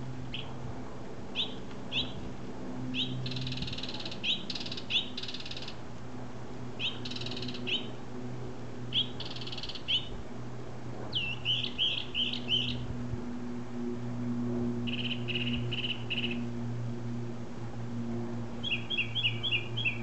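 Small grey songbird calling from a palm: sharp single notes mixed with harsh, buzzy rasps, then, from about halfway through, quick runs of four to six repeated notes. A steady low hum sits underneath.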